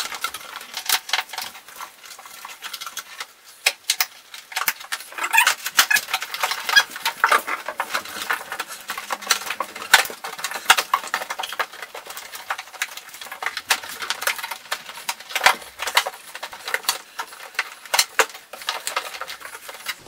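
New plastic evaporator cover with a styrofoam back being worked and squeezed into place against the inside wall of a Samsung fridge: a steady run of irregular plastic clicks, taps and knocks.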